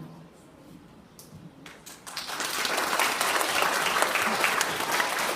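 Audience applauding: dense clapping that breaks out about two seconds in after a short lull and keeps going steadily.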